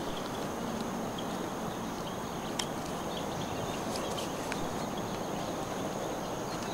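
Outdoor background ambience: a steady hiss with a faint high steady tone, broken by a few faint ticks about two and a half, four and four and a half seconds in.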